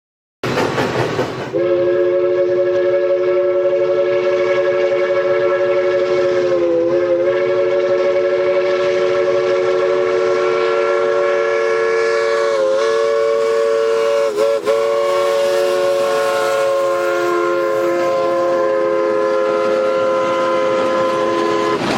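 Rio Grande 18's locomotive chime whistle sounded in one long blast of about twenty seconds: a steady chord of several notes, wavering briefly a few times. A short rush of noise comes just before the whistle sets in.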